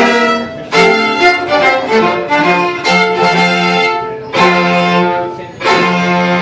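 A string quartet playing classical music: a series of loud, sustained bowed chords, each struck anew about every second or so.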